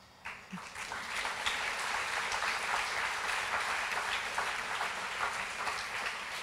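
Audience applauding: many hands clapping, starting just after the beginning and building within about a second to steady applause.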